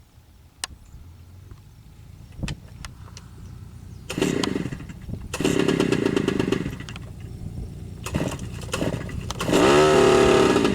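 Piston engine of an agricultural crop-spraying airplane, faint at first, then loud from about four seconds in, coming in surges as the throttle changes, with the pitch dipping and climbing again near the end.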